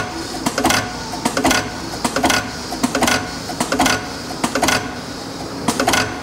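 Snow Model 2 ID inclined automatic drilling machine cycling, its half-horsepower motor running with a steady whir while the spindle feeds in and retracts with a sharp metallic clack roughly every 0.8 seconds.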